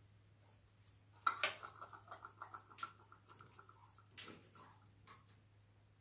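Slime being worked by hand: sticky clicks and crackles, with a squeaky, crackling run starting about a second in and lasting about two seconds, then a few more pops near the end.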